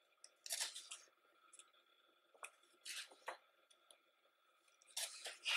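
Pages of a thick hardcover photo book turned by hand: three short paper rustles, about two and a half seconds apart.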